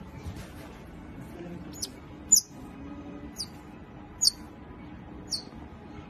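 An otter chirping: five short, high-pitched squeaks, each falling in pitch, starting about two seconds in and coming roughly once a second.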